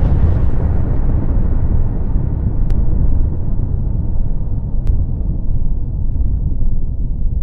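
Deep rolling rumble of an explosion dying away after the blast, the sharper upper part fading within the first second and the low rumble slowly sinking.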